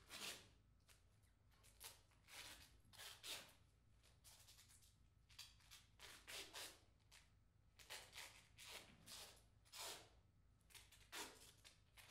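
Faint, irregular rustling swishes, one or two a second, from the cords of a large string puppet being pulled and the puppet moving on them.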